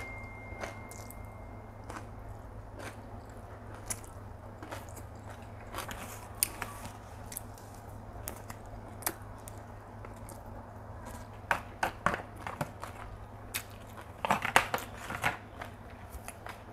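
Mouth sounds of chewing fried flat rice noodles, with wooden chopsticks clicking against a plastic takeaway container. Short scattered clicks grow busier about twelve and fifteen seconds in, over a steady low hum.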